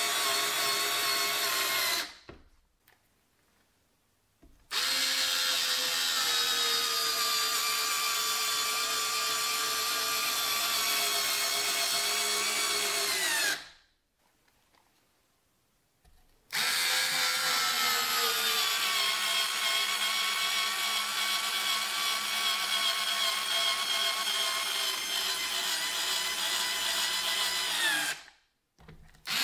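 SKIL 4V cordless drill driving 3-inch construction screws into wood: the small motor whines steadily through two long runs of about nine and twelve seconds, each sagging in pitch as the screw seats and then stopping. A short run comes before them, and there is a brief restart at the very end.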